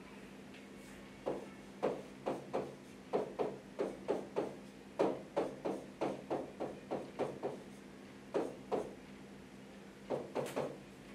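A pen writing out a calculation: a string of short, irregular taps and clicks in quick clusters with brief pauses, over a steady low electrical hum.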